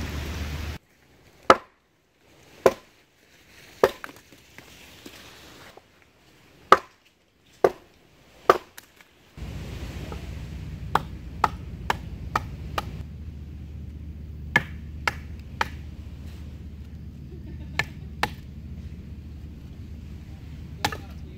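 Wood being chopped: loud single strikes a second or so apart, then, after a cut, lighter quicker chops over a steady background hiss.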